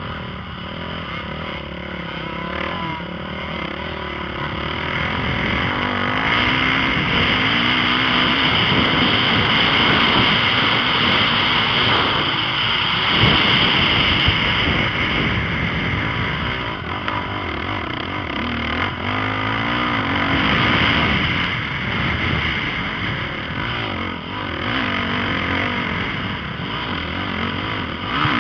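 Motocross dirt bike engine running hard and revving, its pitch climbing and dropping repeatedly as the bike goes round the track.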